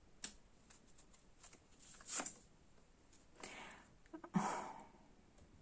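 Tarot cards being handled on a table: several soft swishes and taps of cards being slid and turned over, the loudest about four and a half seconds in.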